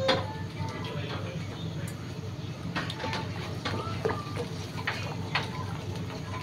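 Metal ladle stirring a pot of fish sarsiado broth, with scattered sharp clinks and scrapes against the pot over a steady low hum.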